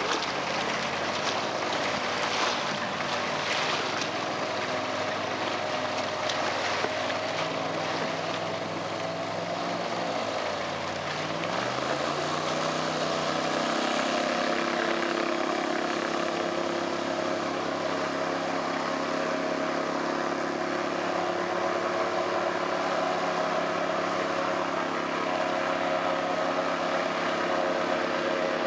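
Passenger airboat's engine and caged air propeller running steadily at speed on its first trial run. The pitch shifts about eleven to fourteen seconds in as the boat comes close by, then holds steady.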